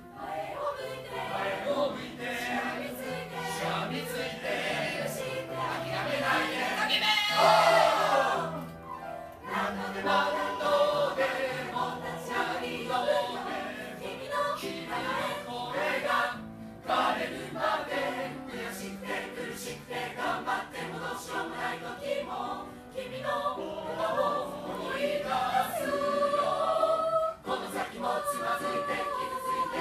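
Mixed choir of men and women singing together in several parts. The sound swells to its loudest about seven seconds in and drops off briefly around nine and sixteen seconds in.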